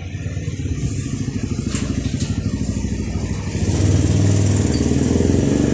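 Sharp top-load automatic washing machine draining the last of its water before the spin-dry: a steady low hum with a rapid pulsing, growing louder about four seconds in.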